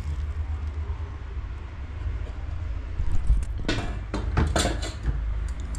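Handling noise: a steady low rumble, then several short scrapes and rustles in the second half.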